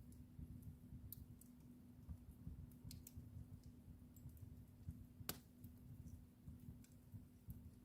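Wood fire in a fireplace crackling faintly: irregular small snaps and pops over a low rumble, with one sharper pop about five seconds in. A faint steady hum runs underneath.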